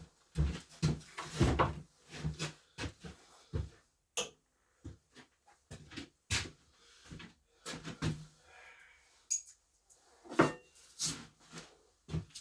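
Irregular series of knocks, clunks and clicks, like objects being handled and set down.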